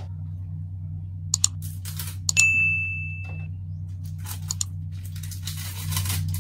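Subscribe and like button sound effects: a pair of mouse clicks about a second in, then a bell-like ding ringing for about a second, and two more clicks a couple of seconds later, over a steady low hum. A short hiss follows near the end.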